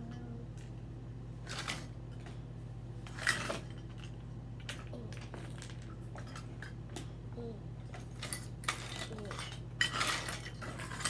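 Small hard objects clinking and knocking as they are handled, in scattered bunches, with a steady low electrical hum underneath.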